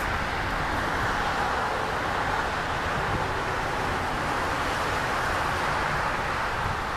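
Steady outdoor traffic noise: an even road hum with no single vehicle standing out.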